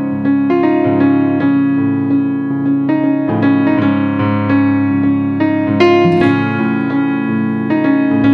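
Background music played on piano or electric piano, a steady stream of sustained notes and chords.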